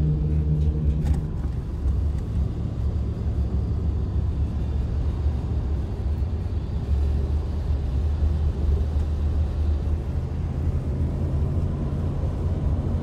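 Car cabin road noise: a steady low rumble of engine and tyres. For about the first second the tyres hum on the bridge's steel grate deck, with a few sharp clicks, before the car rolls onto asphalt and the sound settles into a plainer rumble.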